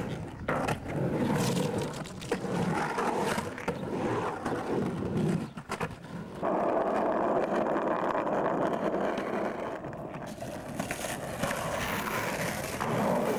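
Skateboard wheels rolling on a concrete bowl, a continuous rough rumble with a few sharp clacks. About six and a half seconds in the rolling sound turns louder and higher and runs on steadily until near the end.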